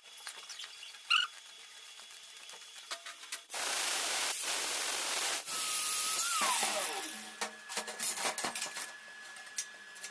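A handheld power tool runs loudly for about three seconds with a steady hissing noise, then is switched off and its motor winds down with a falling whine. Scattered clicks and knocks from handling the work come before and after.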